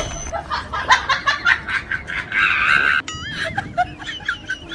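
Laughter: a run of quick snickering bursts, about four a second. About three seconds in it cuts abruptly to a high, wavering warble.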